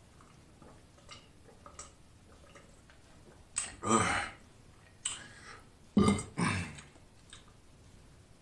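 A man burping several times in quick succession after gulping a drink, the burps loud and starting a little past halfway; faint swallowing clicks come before them.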